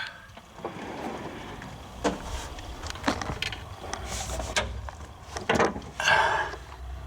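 Handling noises at a steel roller tool box: a series of sharp metal knocks and clicks, and a short scraping slide about six seconds in, as drawers and detent hardware are worked on.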